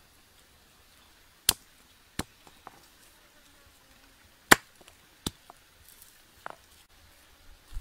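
A blade striking garlic cloves against a stone, chopping or crushing them: a handful of sharp, irregularly spaced knocks, the loudest about halfway through.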